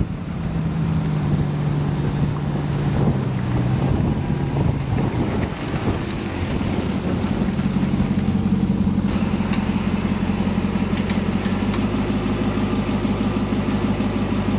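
Ram 1500 TRX's supercharged 6.2-litre V8 running as the truck drives slowly toward and past, its engine pitch shifting in the first few seconds, then holding a steady low note close by for the second half.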